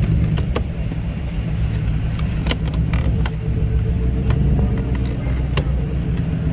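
A car engine running with a steady low rumble, with a few sharp clicks over it.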